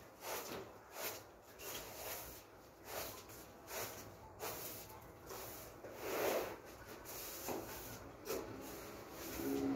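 Broom sweeping sandstorm dust in repeated swishing strokes, about one to two a second.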